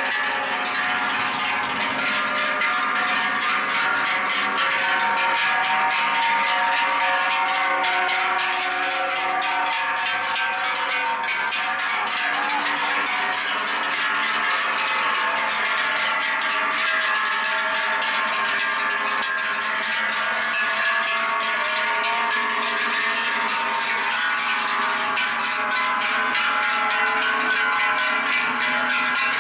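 Many large Swiss cowbells clanging together, worn by a herd of cows walking past, so that their ringing tones overlap into a continuous jangle.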